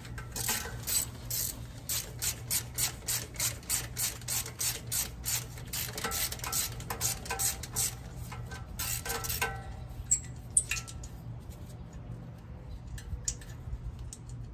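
Hand ratchet clicking in quick, even strokes, about three a second, as 14 mm exhaust manifold bolts are backed out. The run stops about nine and a half seconds in, followed by a few scattered clicks.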